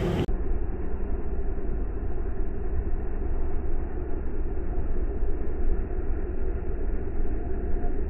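Snow plow loader's engine running steadily: a low rumble with a faint steady hum.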